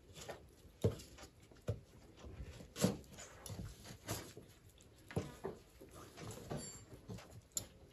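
Knife scraping the spines off prickly pear fruit: irregular short scrapes and clicks, a second or so apart.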